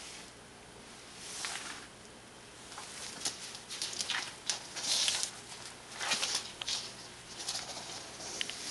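Fabric towel dragged across a smooth hard floor in a series of short, hissing swishes, most of them between about three and eight seconds in.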